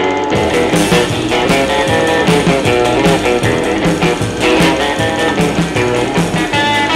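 Background rock and roll music with guitar and a steady beat. The sound gets fuller just after the start.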